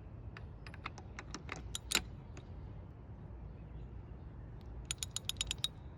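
Metal clicks from a 3/8-inch socket wrench being picked up and fitted. A quick run of ratchet clicks comes about five seconds in.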